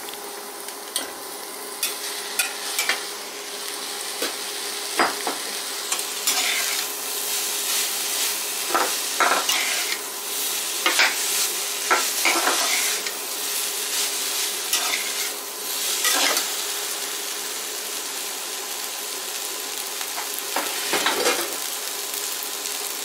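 Vegetables and boiled pasta sizzling in oil in an aluminium kadai while being stirred and tossed with a metal slotted spatula, with irregular scrapes and knocks of the spatula against the pan.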